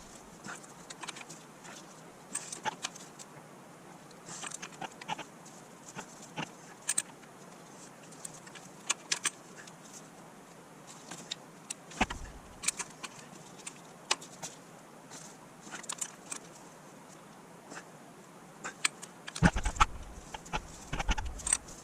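Scattered small metallic clicks and clinks of hand tools and parts being handled while a new oil pressure switch is fitted. A heavier knock comes about twelve seconds in, and a busier cluster of knocks and clinks near the end.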